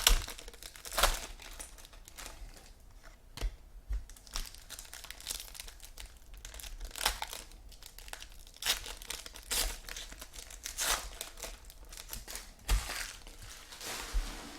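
Trading card pack wrappers crinkling and tearing as packs are ripped open by hand, in irregular bursts of crackling.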